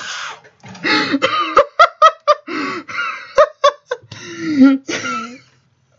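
A man laughing hard in a run of short bursts, dying away near the end.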